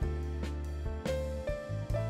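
Background music with a steady beat about twice a second over held bass notes and a melody.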